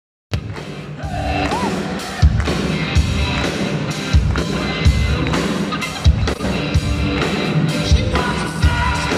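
Live rock band playing through the PA, with electric guitars and a drum kit whose kick drum hits strongly and regularly. It comes in after a brief dropout at the very start, quietly at first, and is at full level from about a second in.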